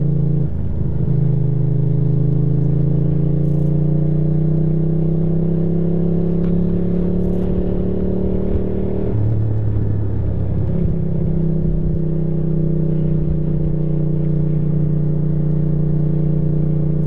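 Ducati motorcycle engine running under way: the pitch climbs slowly as it accelerates, drops sharply about nine seconds in as the revs fall, then holds steady at a cruise.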